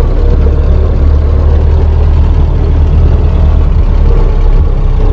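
1930 Ford Model AA truck's four-cylinder flathead engine running steadily with a deep, even rumble, heard from inside the cab.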